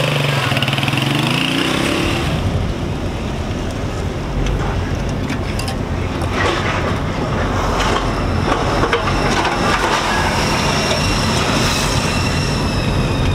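A motorcycle engine revs up, its pitch rising over the first two seconds or so. After that comes the steady low rumble of a car driving on a street, heard from inside the cabin, with a few clicks and knocks.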